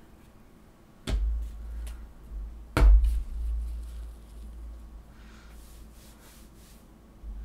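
Two knocks on a wooden work table, about a second in and just under three seconds in, the second louder, each followed by a low rumble; then faint rustling of hands handling craft materials.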